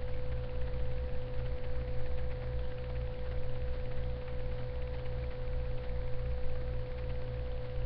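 Steady electrical noise on a webcam microphone: one constant mid-pitched pure tone over a low buzzing hum and a hiss, with no speech.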